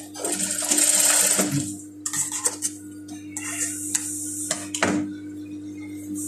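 JUKI industrial sewing machine stitching in a burst of about a second and a half, then stopping. Fabric is handled and scissors snip the thread a few times, over the steady hum of the machine's motor.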